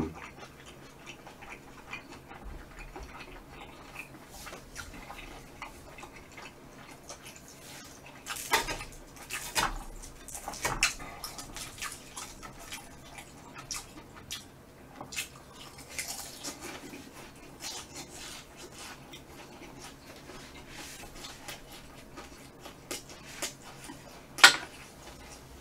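Chopsticks clicking against a metal tray pan while picking up food, with quiet chewing between. A few sharp clicks stand out, a cluster a little over a third of the way in and one near the end.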